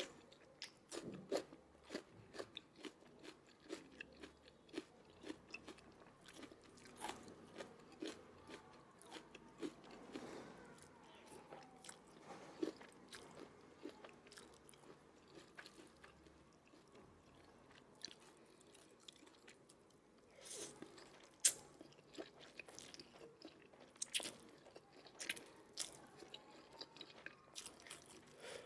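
A person chewing and biting food close to the microphone: many short crunches and mouth clicks, thinning out for a few seconds past the middle.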